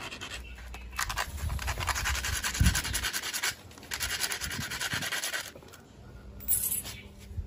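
Sandpaper rubbed rapidly back and forth against a wooden block, in two scraping bouts of a couple of seconds each, with one brief scrape near the end.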